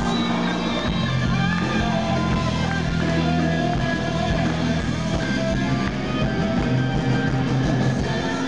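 Live rock band playing on stage: electric guitars over bass and drums, dense and steady.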